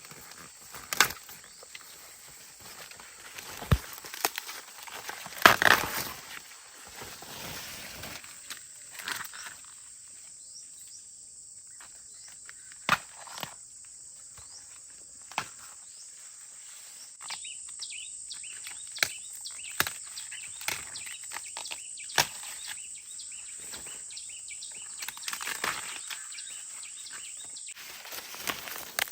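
Rustling of plants being handled, with scattered sharp snaps, over a steady high-pitched insect chorus.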